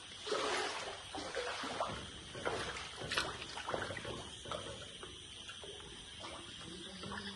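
Floodwater sloshing and splashing as someone wades through it, in uneven strokes about every half second.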